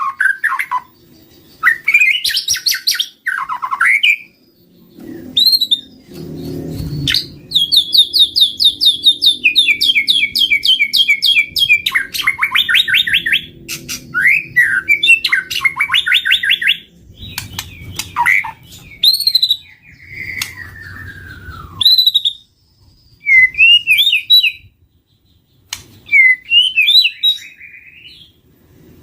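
White-rumped shama singing a varied song: rich whistles, fast rattling trills and sweeping notes in separate phrases with short pauses between them.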